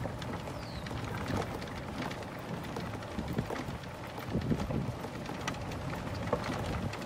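Steady outdoor noise with wind on the microphone, broken by scattered light clicks and rustles.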